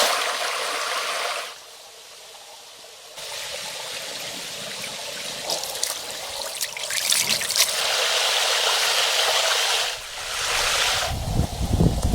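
Water trickling and running, in short stretches that start and stop abruptly.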